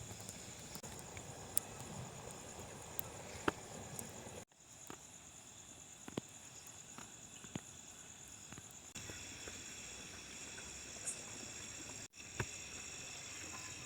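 Night insects, crickets, chirring steadily in a high thin tone, with scattered faint crackles from a wood cooking fire.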